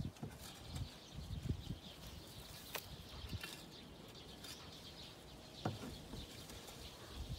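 Small hand hoe scraping and chopping through dry chicken-coop litter and manure, in soft irregular strokes with a few light knocks.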